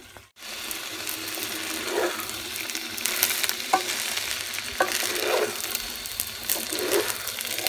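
Raw washed polao rice frying in hot oil and ginger-garlic paste, stirred and scraped around the pan with a wooden spatula: a steady sizzle with the scrape and rustle of the grains. This is the stage of frying the dry rice until the grains turn separate, before water goes in.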